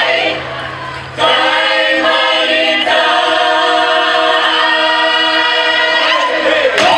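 Bulgarian folk choir, mostly women's voices, singing unaccompanied in close harmony. The singing is quieter for about the first second, then the full choir comes in loud on held chords, with a falling slide in pitch near the end.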